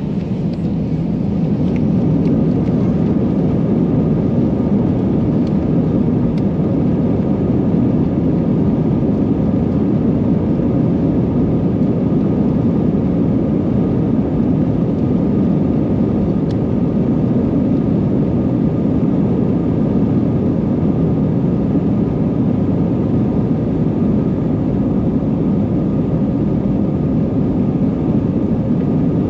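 Airbus A320-232 jet engines (IAE V2500) at takeoff power, heard inside the cabin as loud, steady engine and rushing-air noise with a few faint steady tones. The noise builds over the first couple of seconds, then holds level.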